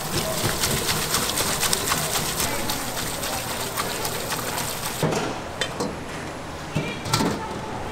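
Tap water spraying from a pull-down sink faucet onto boiled noodles in a perforated stainless-steel colander while hands rub and rinse them. The water stops about five seconds in, followed by a few clanks of the metal colander and bowl.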